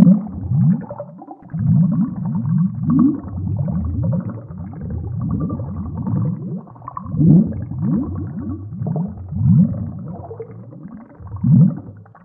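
Air bubbles gurgling up through water: a continuous low burbling made of many short rising glugs, with louder ones now and then.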